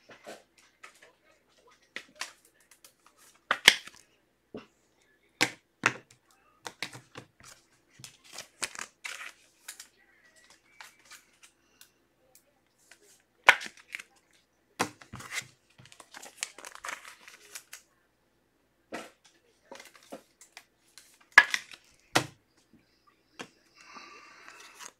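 Trading cards and their packaging being handled on a tabletop: scattered light clicks and taps, with a few short stretches of wrapper crinkling and tearing.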